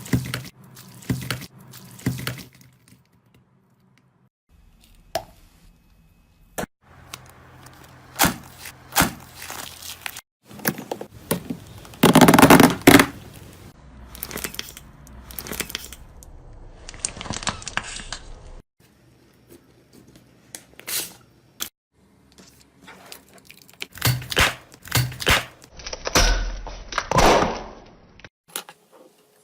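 Slime being squeezed, stretched and poked by hand, close up: many short sharp pops and clicks with sticky, tearing sounds, in a string of short clips that cut in and out abruptly.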